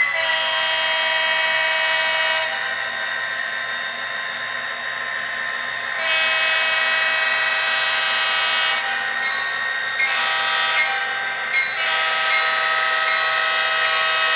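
Diesel locomotive horn from the sound decoder of an HO-scale SD40-2 model, sounding the grade-crossing signal: two long blasts, a short one and a long one, over the steady hum of the prime mover.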